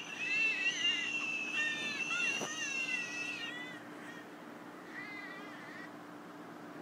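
A baby's crying: high, wavering wails that fade out about three and a half seconds in, with a short whimper about five seconds in.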